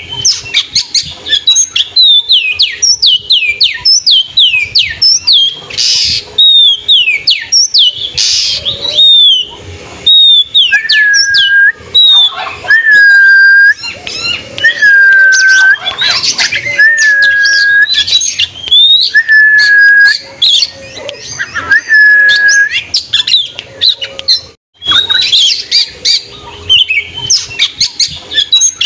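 Oriental magpie-robin (kacer) singing loudly in fast runs of sharp, downward-sweeping notes. About a third of the way in it switches to six clear, level whistles, each nearly a second long, then returns to the quick falling notes near the end.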